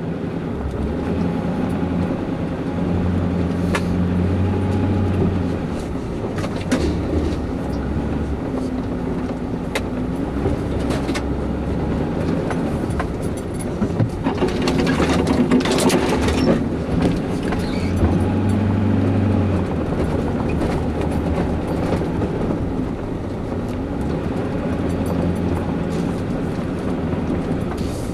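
A vehicle driving slowly along a rough dirt track, heard from inside the cab: a low engine drone that shifts in pitch now and then, under road rumble with scattered clicks and rattles. The rattling is loudest about halfway through.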